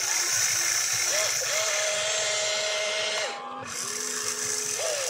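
Electric motors and gears of a radio-controlled excavator whining as the boom lifts and the upper body swings. The whine holds steady, then glides and steps in pitch as different functions start and stop, with a brief drop about three and a half seconds in.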